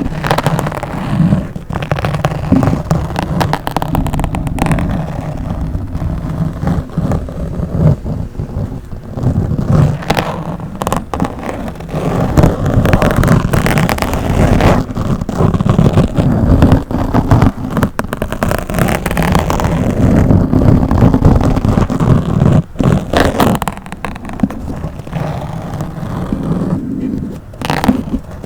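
Scratching and rubbing directly on a microphone: a continuous, dense crackling and popping over a low rumble, with a few brief pauses.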